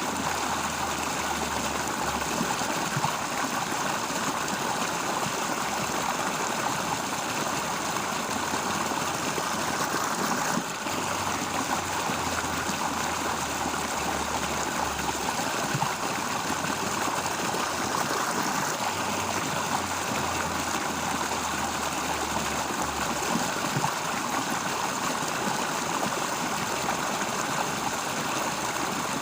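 Water flowing steadily in a constant rushing noise, with a brief dip about ten seconds in.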